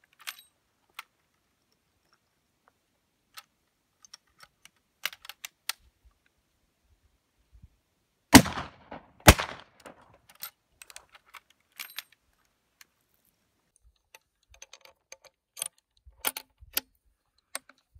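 Two shots from 1873 Springfield trapdoor carbines in .45-70, about a second apart, each followed by a ringing echo. Before and after them, sharp metallic clicks of the carbines' trapdoor breechblocks being opened, loaded and closed.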